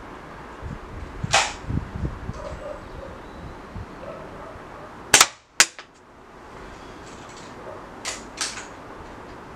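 Air rifle being fired: sharp cracks, the loudest a close pair about five seconds in, with a fainter crack about a second in and two more close together near the end.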